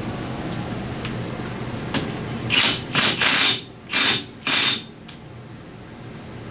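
Impact wrench with a 27 mm socket hammering the front axle nut onto the hub, in about five short bursts between two and five seconds in.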